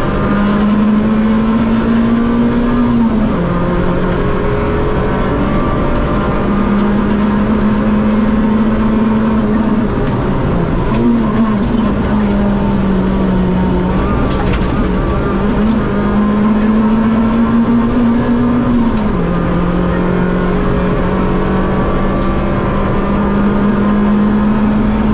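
Rally car engine heard from inside the cockpit, pulling hard at high revs on a tarmac stage. Its pitch climbs slowly through each gear and drops sharply at the gear changes, about three seconds in, around ten seconds in and again near nineteen seconds.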